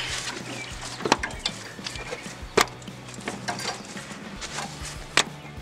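A few sharp metallic knocks and clicks, seconds apart, as a Toyota Tacoma front CV axle is turned and pushed by hand to seat its circlipped splined end in the front differential; it has not yet gone in.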